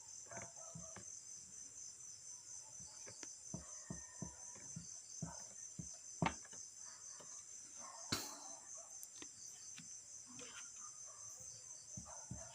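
Crickets chirping steadily in the background, with faint scattered taps and scrapes and two louder clicks about six and eight seconds in.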